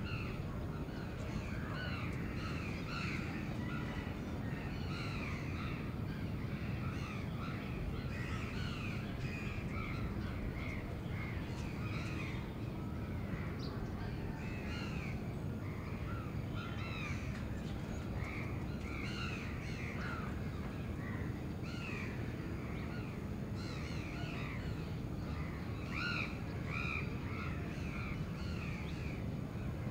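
Many crows cawing, call after call overlapping, over a steady low city rumble.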